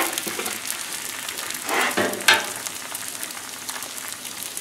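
Eggs, diced onion and sliced potatoes frying on a hot Blackstone flat-top griddle: a steady sizzle, with a couple of louder short sounds about two seconds in.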